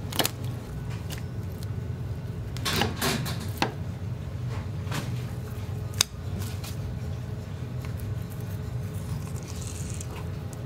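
A knife and gloved hands working a fish on a plastic cutting board while filleting it, giving scattered soft knocks and scrapes, with one sharp knock about six seconds in. A steady low hum runs underneath.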